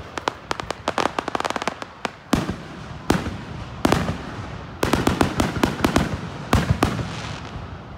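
Aerial fireworks bursting overhead: sharp bangs and rapid crackling. A quick run of small cracks comes early, then louder bangs about once a second, then dense volleys of cracks past the middle and again near the end.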